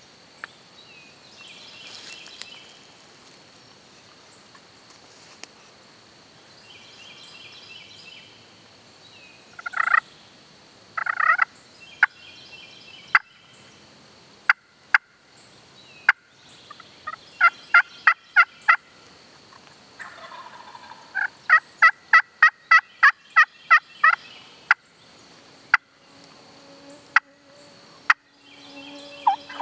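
Wild turkeys calling: a gobbler gobbles twice, about ten seconds in, followed by long runs of rhythmic turkey yelps at about four a second. Faint songbirds chirp in the background.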